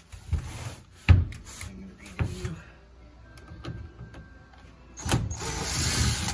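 Cordless drill-driver running in short bursts as it drives screws into a truck cab's interior panel. There is a sharp knock about a second in, and a longer drill run near the end.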